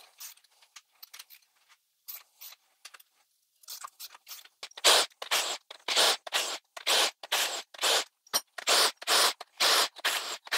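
Cordless impact wrench in short rattling bursts, about three a second, loosening the cylinder head bolts of a 350 small-block Chevy. Faint clicks and knocks of tool handling come before the bursts begin, about five seconds in.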